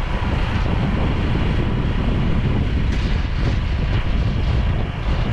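Strong wind buffeting the microphone: a loud, steady, rushing rumble.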